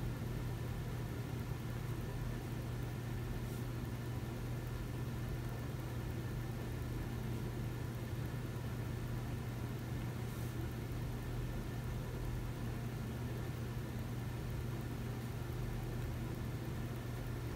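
Steady low hum of a running machine or appliance, unchanging throughout.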